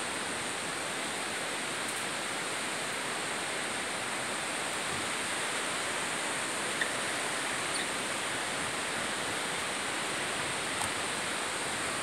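Falling water of a waterfall and river in the gorge below: a steady, even rush that never lets up.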